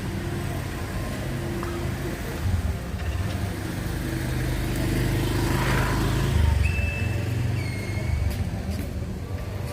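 Car engine running with road traffic. A vehicle swells past about five to six seconds in, and a couple of short high beeps sound near the end.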